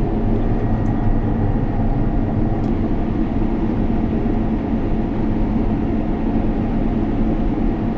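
Steady engine drone with a constant hum, unchanging throughout.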